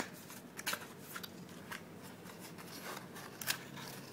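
Hands handling a cardboard box and its paper contents: scattered light rustles and clicks, a few a little louder than the rest.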